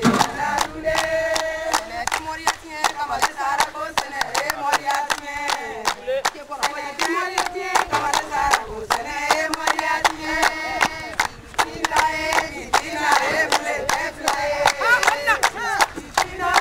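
A group of women singing together in held, chant-like phrases over steady rhythmic hand clapping.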